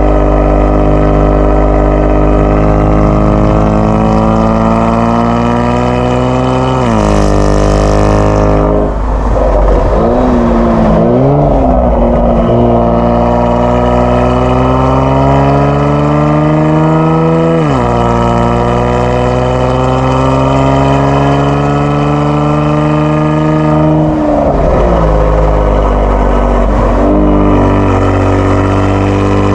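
Kia Stinger 3.3 twin-turbo V6 running through a JSR Performance aftermarket exhaust while accelerating on the road. The engine note climbs steadily in pitch and drops sharply at three upshifts. After the first shift the pitch wavers up and down for a few seconds before it climbs again.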